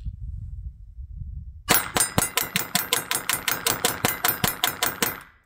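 Sig Sauer P322 .22 LR semi-automatic pistol fired in quick succession: some twenty shots at about six a second, emptying its 20-round magazine. The shooting starts after about a second and a half of low rumble.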